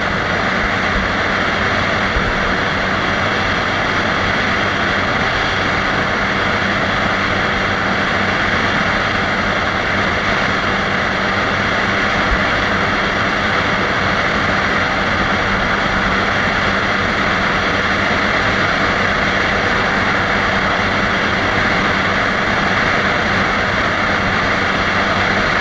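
Suzuki GSX-R150's single-cylinder engine running flat out in sixth gear, holding close to top speed at about 155 km/h. Steady, unbroken engine drone mixed with a heavy rush of wind.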